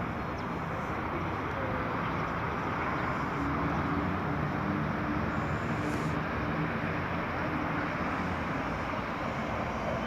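Steady city traffic noise: a constant wash of engines and tyres with a low engine hum.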